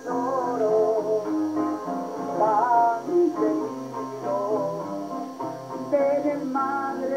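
Live acoustic guitars strummed and picked, accompanying a man singing a song in Spanish.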